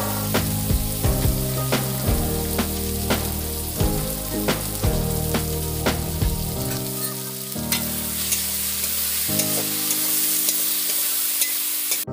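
Onion, spice-paste and tomato masala frying in a pan with a steady sizzle while it is stirred, the spatula clicking and scraping against the pan about twice a second, less often after about seven seconds.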